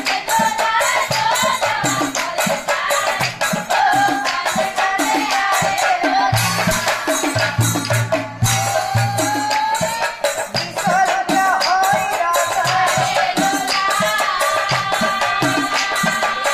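Assamese nagara naam: a woman sings the lead melody over a fast, steady beat of nagara drums and hand percussion. About six seconds in, a deeper drum sound comes in for about two seconds.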